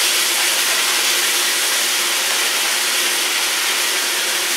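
Chopped onions sizzling steadily in hot oil in a pot as they are stirred with a plastic ladle, frying until they soften.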